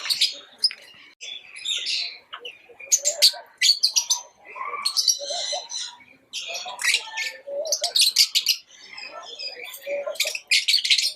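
Lovebirds chirping: repeated bursts of rapid, sharp, high chirps with softer, lower chattering notes in between.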